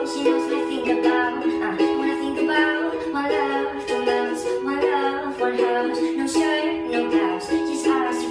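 Background music led by a strummed string instrument, with a steady strumming rhythm.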